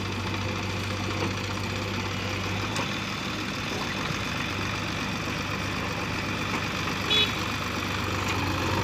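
Diesel engine of a JCB backhoe loader running steadily as it digs and loads soil into a tractor trolley. A brief high-pitched squeak about seven seconds in.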